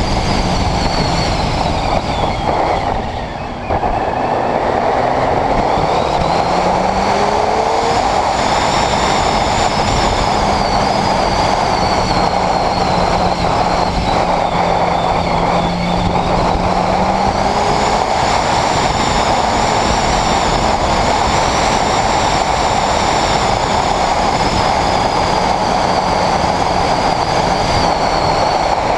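Honda CBR600RR's inline-four engine running under way, with steady wind and road rush. About three seconds in the sound dips briefly, and then the engine note climbs as the bike accelerates again.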